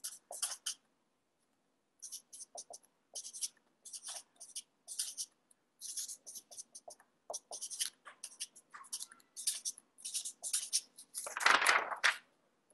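Writing on paper: many short scratchy strokes in quick runs with brief pauses, as math working is written out by hand. Near the end a louder, fuller rustle.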